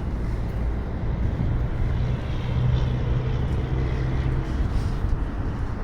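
Low steady rumble of a motor vehicle engine, with a hum that swells about a second and a half in and fades away again toward the end.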